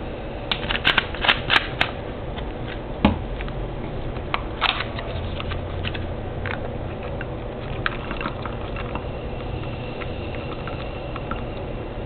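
Raisins being dropped into a glass of Sprite: a quick run of sharp clicks and plinks, two more single ones a few seconds later, then the soda fizzing with faint scattered ticks.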